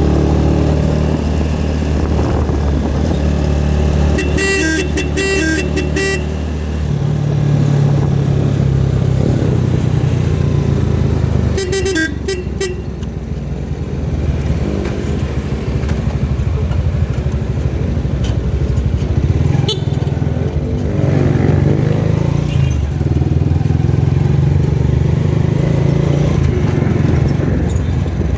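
A motor vehicle's engine runs steadily on the road, broken by two bursts of quick repeated horn toots: one about four seconds in and a shorter one about twelve seconds in.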